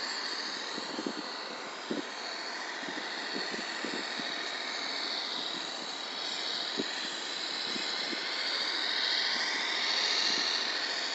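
Scale RC model of a Mercedes-Benz SK 3544 8x8 dump truck driving, with a steady high whine that rises and falls in pitch as it changes speed. A few faint clicks sound along the way.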